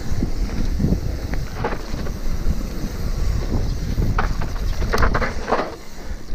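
Mountain bike descending a dry dirt trail: wind buffeting the bike-mounted camera's microphone, with the tyres crunching over loose dirt and the bike rattling, louder in short spells about four to five and a half seconds in.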